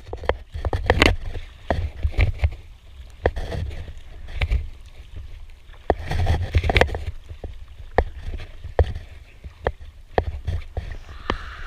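Double-bladed kayak paddle dipping and pulling through choppy seawater, splashing about every couple of seconds, from an inflatable kayak. Sharp clicks and knocks come between the strokes, over a steady low rumble.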